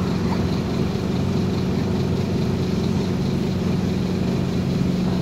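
Scania OmniCity double-decker bus's five-cylinder diesel engine running at a steady drone, heard from inside the passenger saloon as the bus drives along, with road and body noise underneath.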